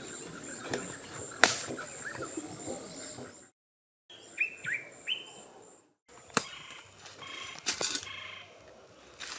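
Small birds chirping in short, falling notes over a steady, pulsing high-pitched buzz, with a few sharp clicks. The sound cuts out briefly twice, about three and a half and six seconds in.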